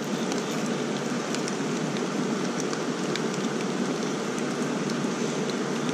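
Steady hiss of water, dotted with small scattered ticks like drops landing.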